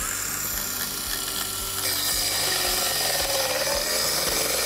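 Makita 18 V cordless circular saw running and cutting through an old weathered wooden plank. It starts with a steady whine, grows louder and harsher about two seconds in as the blade bites into the wood, and the motor's pitch sags under load. The saw has lost power, which the user puts down to its battery running low.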